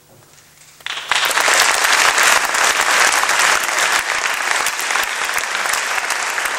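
Faint electrical hum, then a concert audience breaks into loud applause about a second in and keeps clapping steadily.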